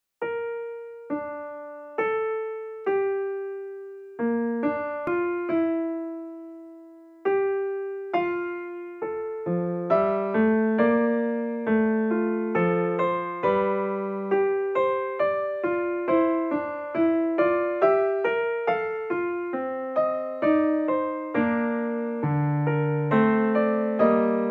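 Piano music: slow, spaced single notes at first, each ringing out and fading, then a fuller, busier accompaniment with lower bass notes joins about ten seconds in.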